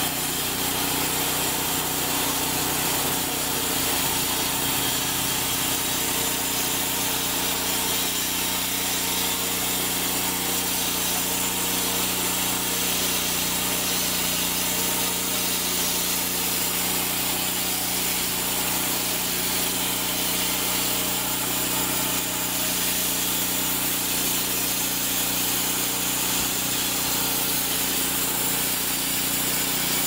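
Homemade band sawmill running steadily, its small gasoline engine driving the band blade through a log.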